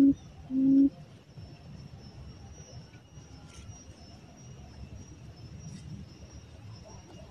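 A decoy quail in a leaf-covered trap calls with low, hollow hoots: the last two of an even series fall in the first second. After that there is only faint rustling and a few soft clicks.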